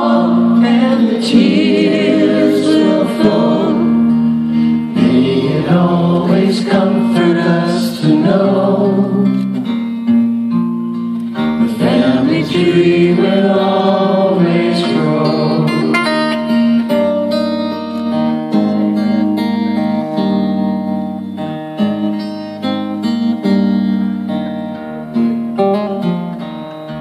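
Live band performing a song: several singers in close harmony over guitar.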